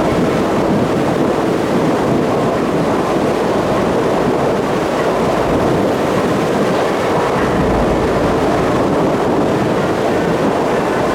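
Steady, loud noise of a passenger ferry under way: an even engine drone mixed with rushing water along the hull.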